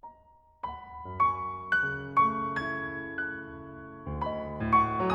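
Soft solo piano music: a slow melody of single ringing notes over sustained chords, starting quietly with two notes before the chords come in.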